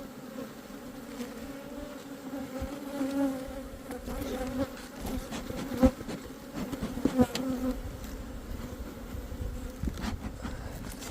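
Honeybees buzzing around an open hive: a steady hum. A few short sharp knocks sound over it.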